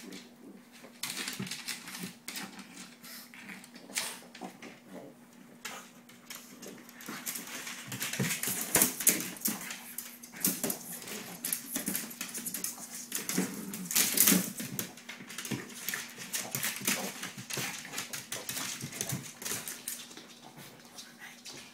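Two Pekingese dogs scuffling in a play-fight that stays short of a real fight: dog noises mixed with quick irregular clicks and scrabbling on a wooden floor, coming in bursts that are loudest around the middle.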